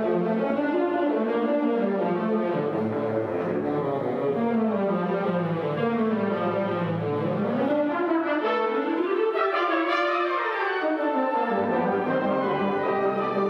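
Concert band playing, with melodic runs that fall and rise through the middle of the passage.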